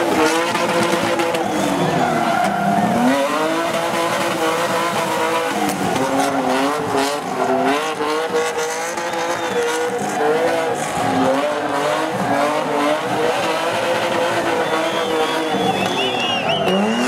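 Car engine revving hard, its pitch rising and falling over and over as the car drifts in tight circles, with tyres squealing and skidding. The squeal is clearest near the end.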